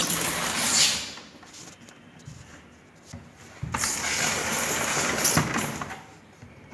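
Handling noise: a plastic printer body being shifted and rubbed by hand, two stretches of scuffing and rustling with a few light clicks.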